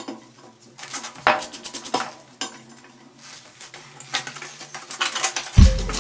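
Loose steel pieces clinking and clanking against each other in a handful of separate knocks. Music with a drum beat comes in near the end.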